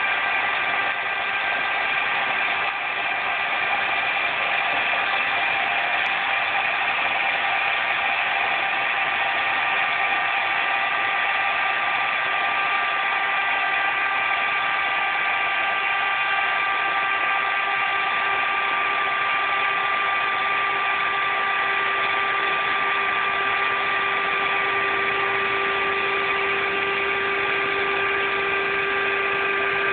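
Electric air pump running steadily as it inflates an air mattress, a loud even whirr with a low hum that grows stronger in the second half as the mattress firms up.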